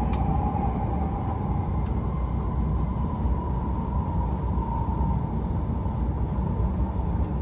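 Cabin of a moving Hokuriku Shinkansen (E7 series) bullet train: a steady low rumble of the running train, with a high whine that climbs a little in pitch over the first few seconds.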